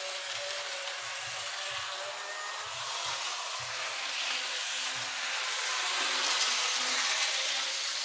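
Model train locomotive running along the track: a steady whirr of its small electric motor and wheels on the rails, getting a little louder about six seconds in.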